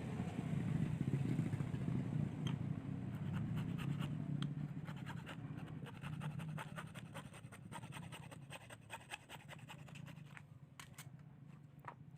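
Rapid scratching and scraping from hand work on a small part, heard as a quick run of small clicks over a low steady hum that fades away; a few sharper ticks near the end.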